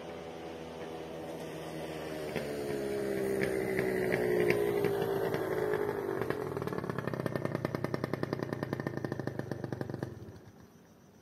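Small motor scooter engine passing close by, its note falling in pitch as it goes past, then a fast even putter as it slows. The engine sound cuts off abruptly about ten seconds in.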